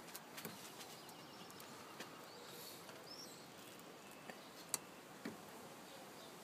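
Faint, scattered small metallic clicks from a Lishi pick working inside a car door lock, with one sharper click about three-quarters of the way through.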